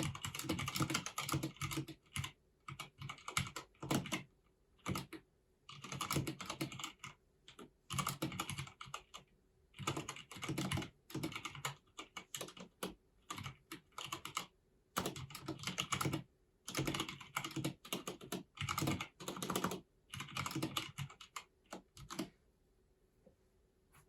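Typing on a Filco Minila-R Convertible compact mechanical keyboard with Cherry MX switches: bursts of rapid keystrokes broken by short pauses, stopping near the end.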